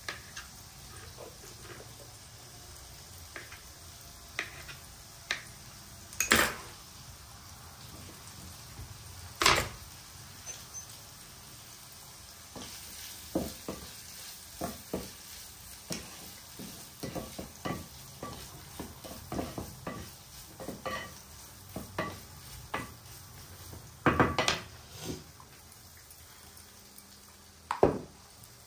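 Olives frying in a pan with a faint steady sizzle, under many sharp kitchen knocks: a knife tapping on a cutting board at first, then a quick run of clacks from a wooden spoon against the pan as the olives are stirred, and a few louder knocks of utensils being handled and set down.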